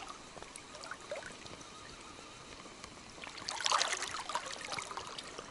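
Small river water trickling and lapping steadily, with a brief louder burst of crackly splashing about three and a half seconds in.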